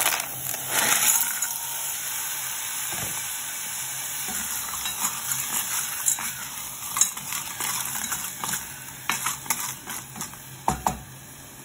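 Fresh cockles and sea snails in their shells tipped into a hot stainless steel pot of sautéed aromatics, sizzling loudly at first, then clattering and clicking against each other and the pot as they are stirred with a wooden spatula over a steady sizzle.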